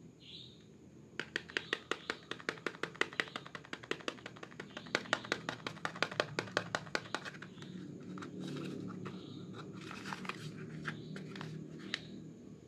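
Fingernails tapping quickly on a cardboard soap box, several sharp taps a second. After about seven seconds the tapping gives way to rubbing and scratching over the box.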